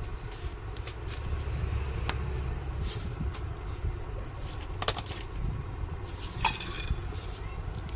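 Scattered light clicks and knocks of a plastic electric iron and its cord being handled on a worktable, over a steady low rumble.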